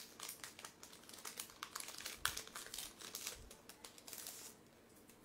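Foil Yu-Gi-Oh! booster-pack wrapper crinkling as it is pulled open by hand, a quick run of crackles that stops about four and a half seconds in.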